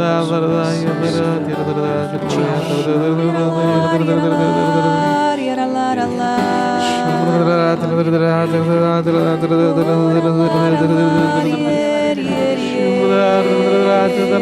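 Charismatic worship singing in tongues: several voices sing slow, wordless, chant-like lines of long held notes over sustained chords.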